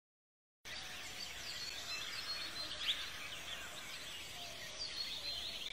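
Silence, then outdoor ambience cuts in about half a second in: many birds chirping in quick short calls over a steady background hiss.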